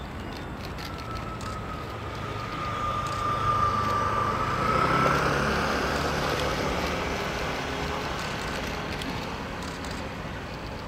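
Aircraft engine noise: a whining tone over a low hum, swelling to a peak about five seconds in, then slowly easing off.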